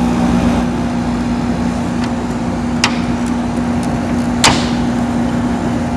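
1986 Friedrich Quietmaster 19,000 BTU air conditioner's compressor running, a steady hum under a rush of air, with the fan set between speeds so the compressor is plainly heard. Two sharp clicks come about three and four and a half seconds in.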